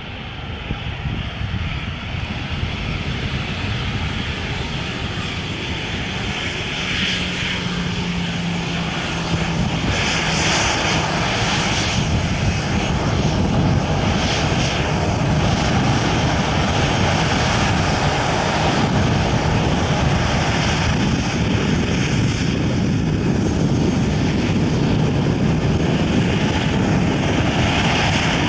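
Airbus A321 with CFM56 turbofan engines running at low taxi power: a steady jet roar with a hum, slowly growing louder as the airliner rolls closer.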